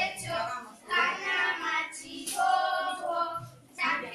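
Young girls singing a song together, in phrases of held notes with short breaks between them.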